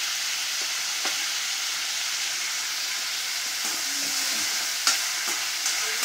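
Chopped onions, tomatoes and red chillies sizzling in oil in an aluminium kadai while a ladle stirs and scrapes them round the pan. A few sharp clicks of the ladle against the metal, the loudest about five seconds in.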